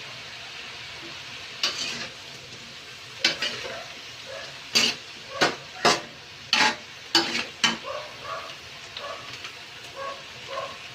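Shrimp frying and sizzling in a pan while a utensil stirs it, knocking against the pan several times, mostly around the middle.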